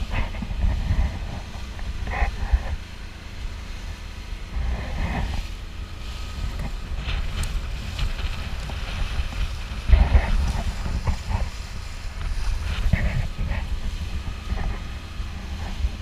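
Wind buffeting the microphone on a small open motorboat under way, over the engine's drone and the rush of the wake splashing along the hull.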